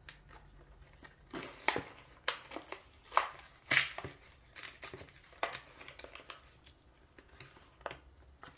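A Hot Wheels blister pack being cracked open by hand: the plastic bubble and card crinkle and tear in an irregular string of sharp crackles and snaps, starting about a second in.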